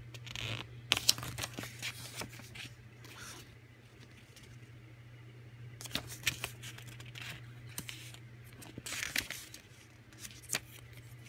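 Pages of a small paper instruction booklet being turned and handled: crisp paper rustles and flicks in three spells, at the start, in the middle and near the end, over a steady low hum.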